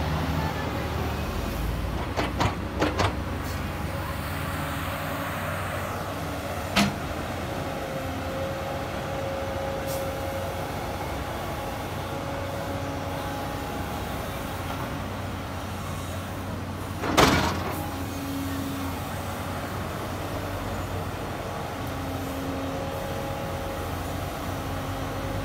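Tata Hitachi hydraulic excavator's diesel engine running steadily as the machine digs into a dirt mound, with a steady whine over the engine. A few sharp knocks come through: a cluster about two to three seconds in, one near seven seconds, and the loudest about seventeen seconds in.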